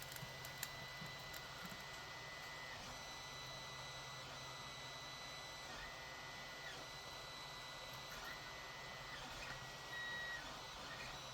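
Faint high-pitched electronic whine that keeps breaking off for a moment and resuming every second or few, over a low steady hum.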